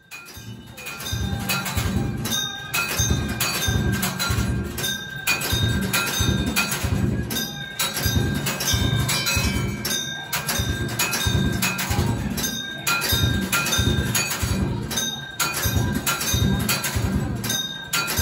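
Hindu temple puja music: bells ringing over a steady drumbeat of about two to three beats a second.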